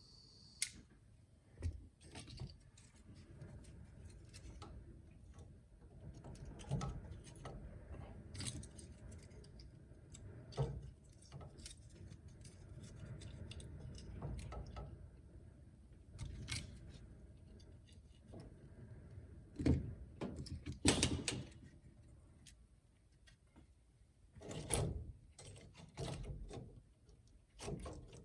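Irregular clinks, knocks and small crackles at a fireplace as a fire is lit on a welded steel grate, over a low steady rumble. The loudest knocks come about two-thirds of the way through.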